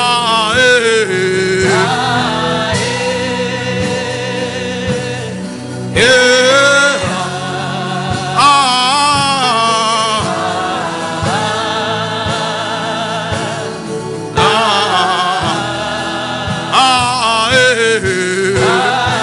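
Gospel music: a singer holding long wavering notes over sustained chords and a steady beat.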